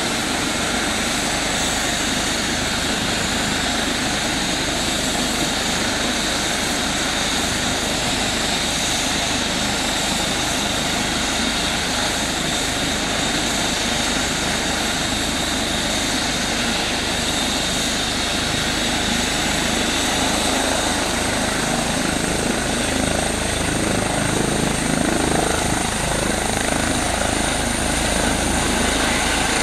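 Eurocopter EC135 air-ambulance helicopter running on the ground after a cold start, its turbine whine of high steady tones over the rush of the turning rotor. Near the end the higher tone creeps up in pitch and the sound grows louder as it lifts off.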